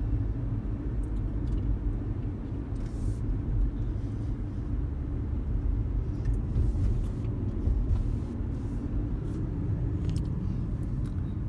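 Cabin noise of a car being driven at low speed: a steady low drone from the engine and tyres on the road.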